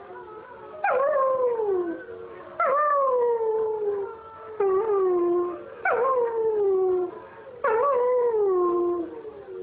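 German Shepherd dog howling: about five long howls in a row, each starting high and sliding down in pitch, with short breaks between them.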